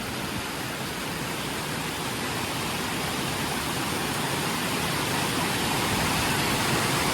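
Waterfall below a lake dam, a steady rush of falling water that grows gradually louder. It is running with plenty of water after a night of heavy rain.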